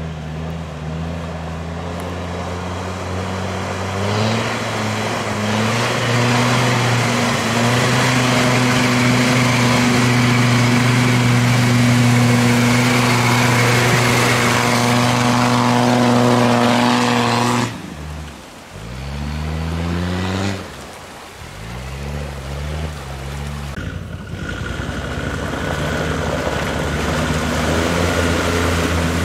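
Land Rover Discovery TD5's tuned five-cylinder turbodiesel held at high revs as it churns through deep mud, with mud and water splashing. About two-thirds in the engine note drops, the revs sweep up and down twice, and then it runs hard again.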